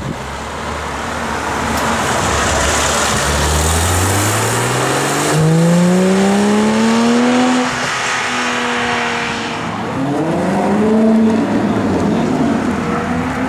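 Porsche 911 GT3's flat-six engine accelerating away hard, its note climbing steeply, dipping briefly at a gear change about seven and a half seconds in, then climbing again. Near the end a Maserati GranTurismo's V8 engine takes over.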